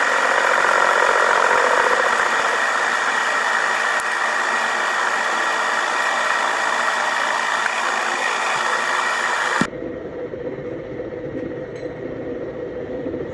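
Metal lathe cutting hard steel on a road grader hub cap: a loud, steady scraping cutting noise that stops suddenly about ten seconds in, leaving the lathe running with a lower, quieter hum.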